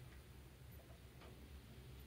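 Near silence: a faint low hum with a couple of soft metal clicks from a hex-key wrench working the band saw's lower blade guide, the clearer one a little past the middle.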